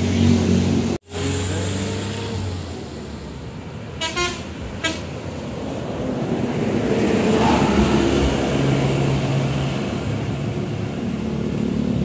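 Tour bus passing close by, its engine growing louder over several seconds, with two short horn toots about four seconds in. The sound cuts off abruptly about a second in.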